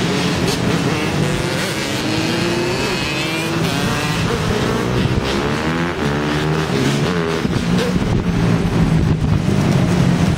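A pack of quad ATVs and dirt bikes running and revving together, many engine notes overlapping and rising and falling in pitch.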